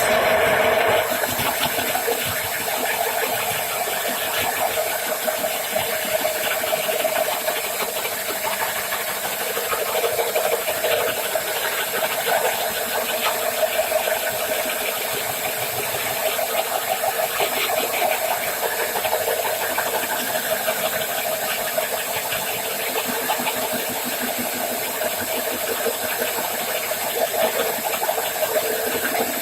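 Power drill driving a 51 mm Bosch Progressor bi-metal holesaw as it cuts through an 18 mm cabinet carcass panel: a steady drill motor with the grinding rasp of the saw teeth in the board.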